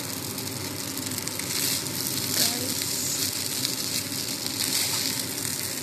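Fried rice sizzling in a hot pot while it is stirred with a spatula: a steady hiss, a little louder about two and a half seconds in.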